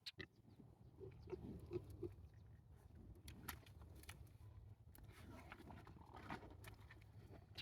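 Pigs grunting softly: a few short, low grunts in the first couple of seconds, then scattered small clicks and rustles.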